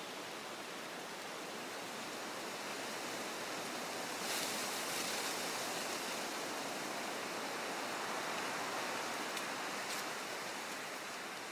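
Leaves of woodland trees rustling in the wind: a steady hiss that swells and brightens about four seconds in, with a brief sharper gust about ten seconds in.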